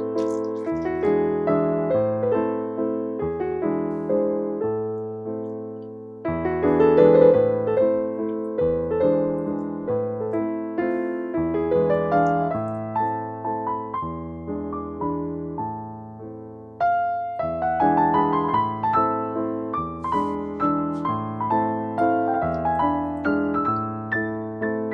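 Piano music: chords over a moving bass line, each note fading after it is struck, with a new phrase starting loudly about six seconds and again about seventeen seconds in.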